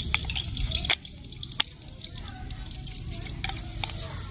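Batteries being pressed into the plastic battery compartment of a toy train locomotive: a few sharp plastic clicks and taps, the loudest about a second in, with lighter fumbling between them.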